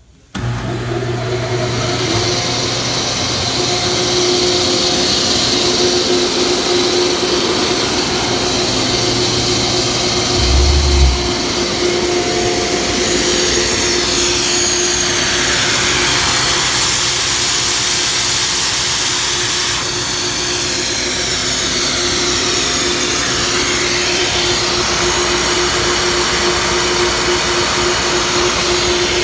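Atlas Copco GA15 20 hp electric rotary screw air compressor starting up and running steadily, with a steady hum. About eleven seconds in there is a brief low surge, after which the deepest part of the hum drops away and the machine runs on evenly.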